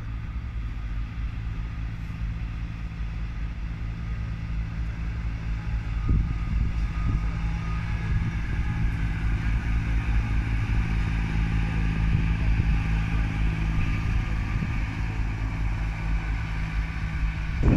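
Pacer diesel railbus running past slowly, its underfloor diesel engine giving a steady drone that grows louder as the unit draws level, about a third of the way in.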